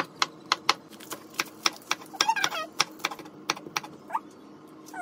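Kitchen knife chopping vegetables (tomato, then spring onion) on a wooden cutting board: a quick run of sharp knocks, about three to four a second, that thins out near the end.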